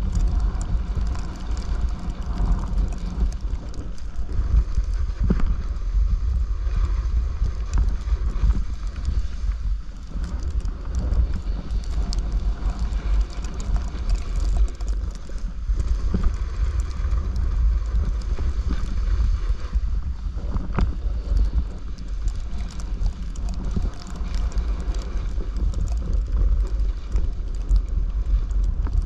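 Wind buffeting the microphone in a steady low rumble while a snowboard slides and scrapes over packed snow, giving a rough hiss with many small scratchy ticks.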